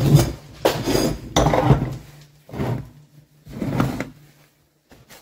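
Impact wrench hammering in five short bursts, loosening the nuts to take the cylinder off a Malaguti moped engine.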